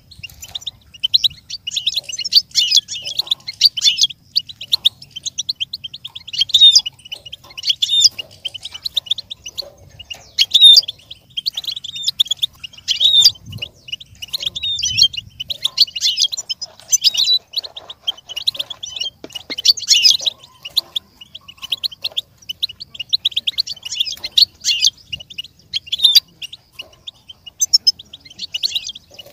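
European goldfinch singing: quick, twittering phrases of a second or two with short gaps between them, one after another.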